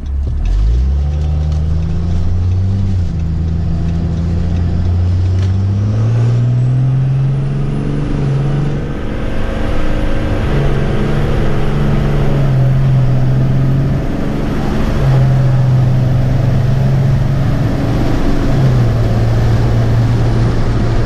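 A vehicle's engine and road noise heard from inside the cabin as it pulls away and speeds up. The engine note rises at first, then settles into steady pitches with short breaks between them, like an automatic changing gears.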